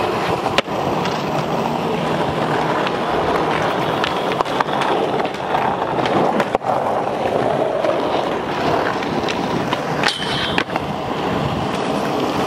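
Skateboard wheels rolling over concrete in a steady rumble, broken by several sharp clacks of the board hitting the ground, with a brief high squeal about ten seconds in.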